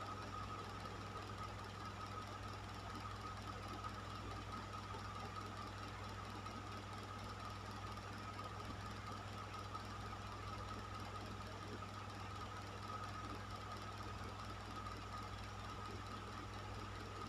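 Electric fan running steadily: an even rush of air over a low motor hum, with a thin steady whine.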